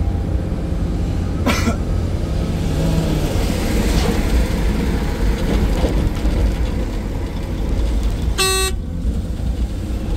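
Excavator's diesel engine running steadily, with a brief sharp sound about a second and a half in and a short horn toot near the end.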